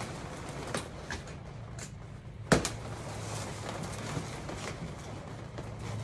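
A latex balloon bursting once with a sharp pop about two and a half seconds in, amid a few faint knocks and rubs from balloons being handled.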